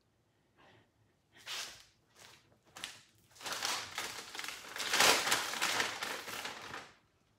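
Packaging crinkling and rustling as dog treats are fetched: a few short rustles, then a longer spell of crinkling that is loudest about five seconds in.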